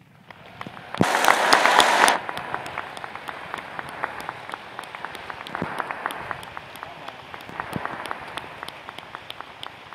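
A large audience applauding in a big hall, with many separate claps heard in it. It swells to its loudest for about a second near the start, then carries on steadily and slowly dies down.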